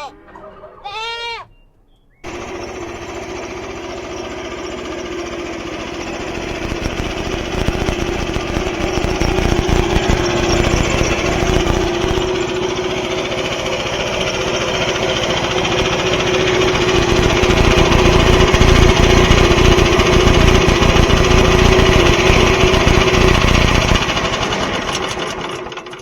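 A goat bleats at the start. About two seconds in, a loud portable band sawmill cuts in and runs steadily with a droning hum, growing louder through the cut and fading out near the end.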